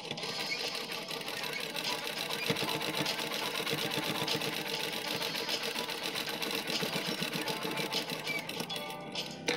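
Sewing machine running at a steady speed, its needle stitching down a pleated fabric strip in a rapid, even run of stitches; it stops near the end.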